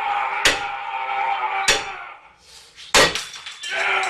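Hammer hitting metal, three hard blows about a second and a quarter apart, to drive the remanufactured power steering pump onto its press-fit dowel. A steady humming tone runs under the first two blows.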